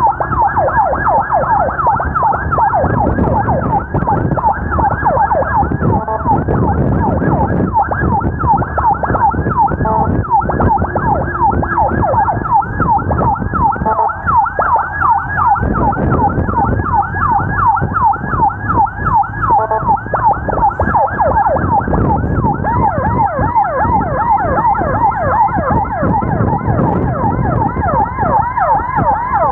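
Emergency vehicle siren in a fast yelp, its pitch sweeping quickly and repeating several times a second. Low vehicle and road noise runs underneath.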